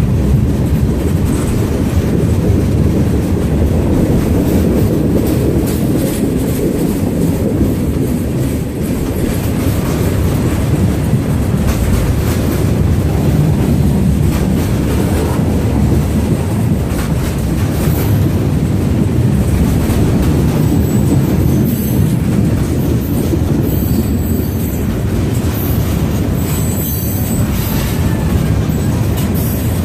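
A train rolling past close by: a steady, loud rumble of wheels on rail, with thin high wheel squeals in the second half.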